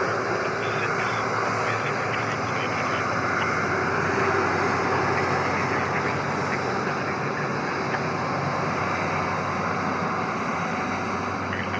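Airbus A330-343's Rolls-Royce Trent 700 turbofans running steadily, an even jet rush with a low hum underneath, swelling slightly about four seconds in.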